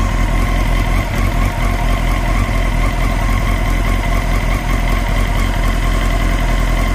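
Honda CBR954RR's inline-four engine idling steadily while warming up, with a knock-like tick that is hard to describe, placed at the back of the engine near the throttle bodies; the owner can't identify it and guesses at a bent valve.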